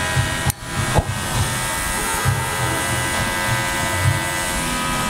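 A steady electric buzz like a small motor running, over background music with a low, recurring beat; the sound briefly dips about half a second in.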